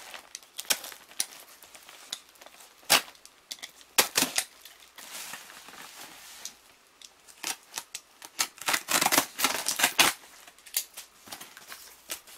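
Box cutter slicing open a cardboard shipping box: irregular sharp clicks and scraping strokes of the blade and cardboard, with a dense run of quick strokes about nine to ten seconds in.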